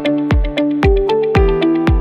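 Electronic background music with a steady kick drum beating twice a second under a stepping synth melody.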